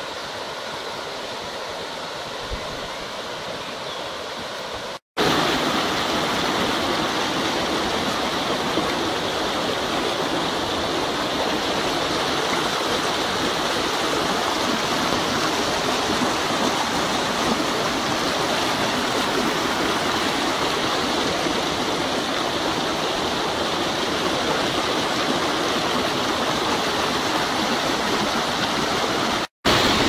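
Steady rush of a mountain stream cascading over boulders. It breaks off for an instant about five seconds in and comes back louder, with another brief break near the end.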